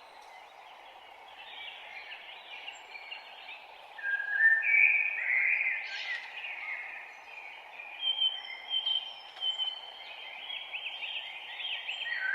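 Morning birdsong from songbirds such as the common blackbird and the chaffinch, phrase after phrase, loudest from about four seconds in, over a steady low background hiss.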